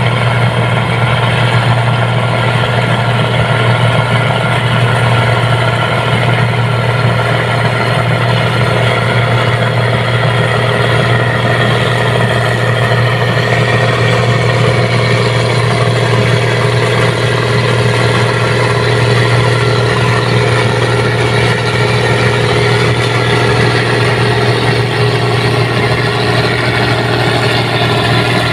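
New Holland Clayson combine harvester running steadily while cutting rice, its diesel engine and threshing machinery making a constant drone with a strong low hum.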